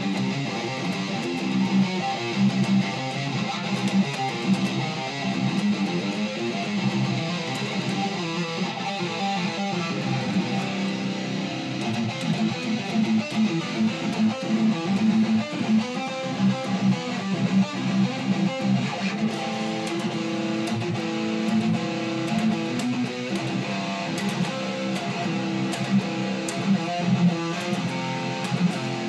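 Electric guitar playing heavy metal riffs without pause, with a steady chugging, rhythmic picking.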